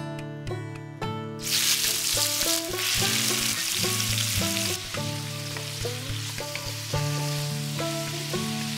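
Marinated prawns hit hot oil in a wok with a loud sizzle about a second and a half in. The sizzling eases after a few seconds and carries on steadily as the prawns fry, over background music.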